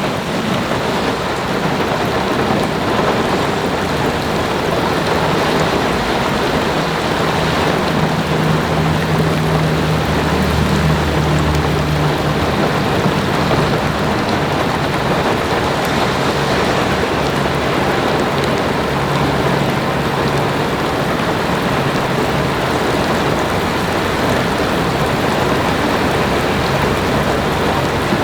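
Strong wind rushing over the microphone with rough water, steady throughout. Under it a motorboat's engine drones low, swelling loudest about eight to twelve seconds in and then fading.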